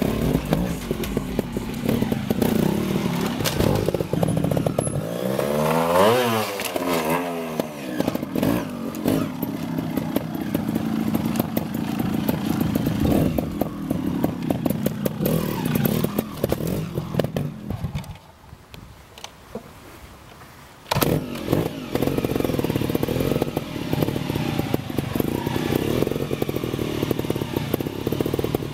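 GasGas 300 Racing trial bike's two-stroke single-cylinder engine, blipped and revved in short bursts as the bike climbs and hops over tyres and concrete, with a quick rev up and down about six seconds in and knocks of the bike landing. About eighteen seconds in the engine drops away to a quieter stretch of some three seconds before picking up again.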